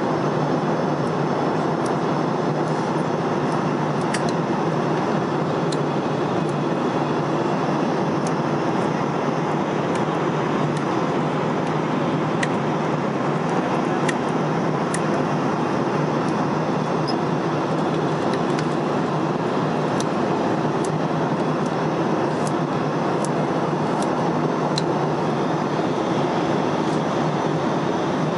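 Steady noise of a jet airliner's cabin in cruise: engine and airflow noise heard from inside, even and unchanging, with a few faint ticks.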